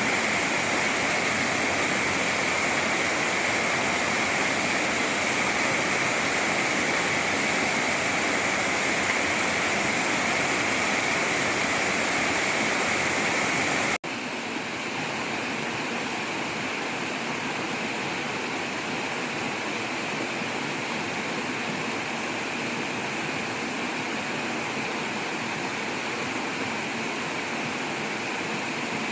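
Mountain valley stream running, a steady rush of water. About halfway through it cuts abruptly to a slightly quieter, different-sounding stretch of water.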